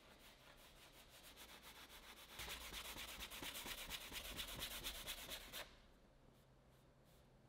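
Bristle paintbrush scrubbing oil paint onto canvas in rapid back-and-forth strokes. The strokes grow louder about two and a half seconds in and stop suddenly near six seconds.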